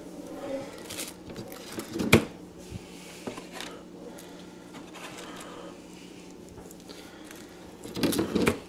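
Kitchen handling noises: one sharp knock about two seconds in and a short burst of clatter near the end, over a low steady hum.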